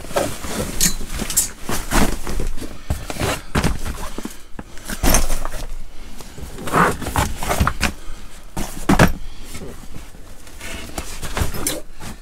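Rummaging in an under-seat storage locker: irregular knocks, scrapes and rustling as a rucksack and bags are handled and pulled out.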